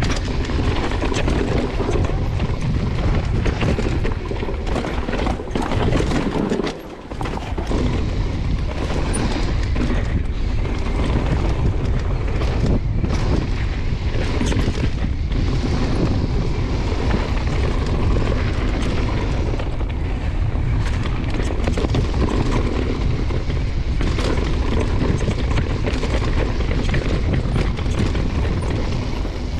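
Wind buffeting the microphone on a downhill mountain bike run, a steady low rumble with frequent rattling knocks from the bike over rough trail. It drops away briefly about seven seconds in.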